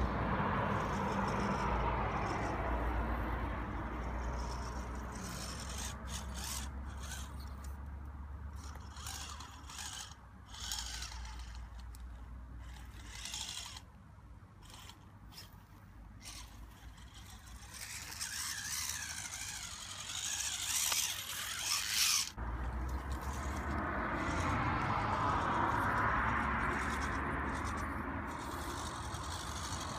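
Mini 1/18-scale RC rock crawler with a brushed 380-size electric motor climbing rock: a faint motor and gear whir under tyres scraping and rubbing on stone. It goes quieter for a couple of seconds midway and cuts off abruptly about two-thirds of the way in.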